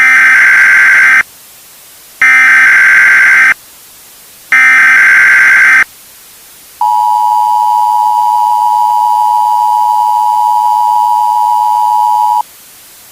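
Emergency Alert System tones: three harsh digital data bursts of the SAME header, each about a second long and a second apart, followed by the steady two-tone attention signal held for about five and a half seconds.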